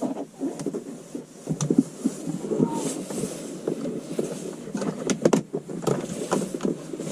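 Wire being pushed behind plastic car interior trim: irregular rustling and scraping with many sharp clicks and ticks of plastic.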